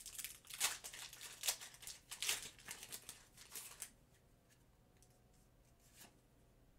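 Pokémon booster pack's foil wrapper crinkling and tearing as it is ripped open and the cards are pulled out, a run of sharp rustles for about four seconds. Then it goes quiet, with one small tick near the end.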